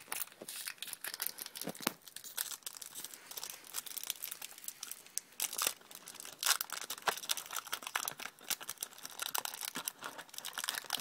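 Foil Yu-Gi-Oh booster pack wrappers crinkling and rustling in the hands in irregular bursts as a pack is torn open.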